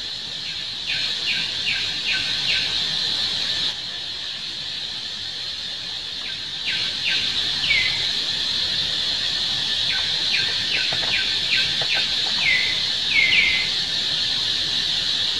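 Outdoor ambience: a steady high-pitched drone with runs of short, falling bird chirps, several a second, about a second in, again around seven to eight seconds, and from about ten to fourteen seconds.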